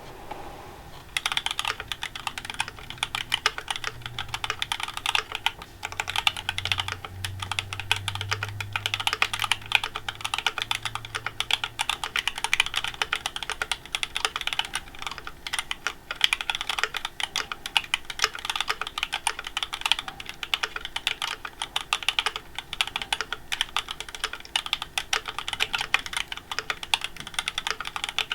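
Continuous fast typing on a KBD67v2 MKII mechanical keyboard with lubed, filmed Gateron CJ linear switches on 68 g springs, a full POM plate and GMK keycaps. The key strokes start about a second in.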